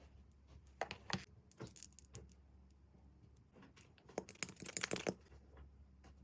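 Makeup packaging being handled close up: sharp taps and clicks with short bursts of crinkling, in a cluster about a second in and a louder one around four to five seconds in.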